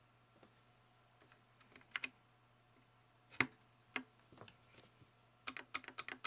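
Typing on a TMOv2 40% custom mechanical keyboard with a polycarbonate case and POM Jelly keycaps: scattered single keystrokes, then a quick run of about eight near the end.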